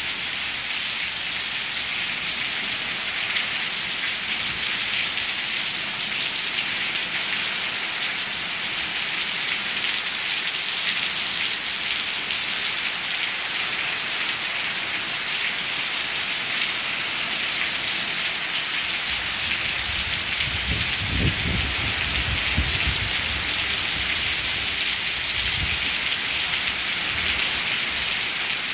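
Heavy rain pouring steadily. About two-thirds of the way through, a low rumble joins it for several seconds.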